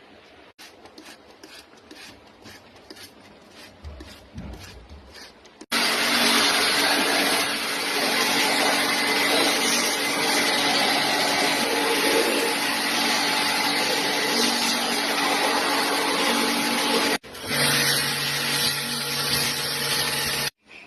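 Electric pressure-washer pump running with a loud rushing water spray, as used to jet-clean air-conditioner coils, stopping briefly once and starting again. Before it comes in, quieter scrubbing or rubbing strokes.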